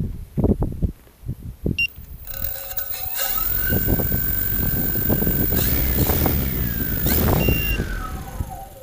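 Multicopter motors and propellers whining in several tones. The pitch rises about three seconds in, holds steady, then falls away near the end. Wind buffets the microphone in the first second or so.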